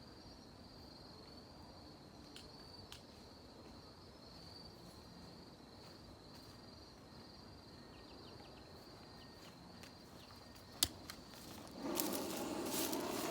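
An insect chirping faintly in a steady, even pulse, high-pitched. Near the end there is a sharp click, and about a second before the end a louder rushing noise sets in.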